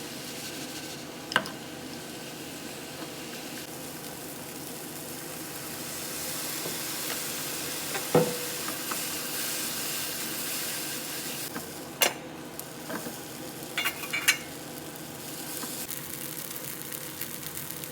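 Udon noodles with enoki and bean sprouts stir-frying in butter in a frying pan, with a steady sizzle. A utensil clinks sharply against the pan several times, and one strike rings briefly around the middle.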